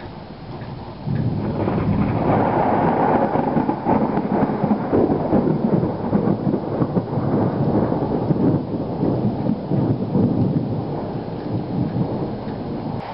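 A long peal of thunder breaks in suddenly about a second in, rumbles on loudly for about ten seconds and then eases off, over the steady hiss of rain.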